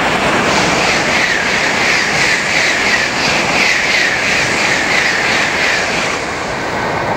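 N700-series Shinkansen bullet train passing through a station at high speed: a loud rush of air and wheels on rail with a quick rhythmic beat, about three a second, as the cars go by, thinning near the end as the tail car passes.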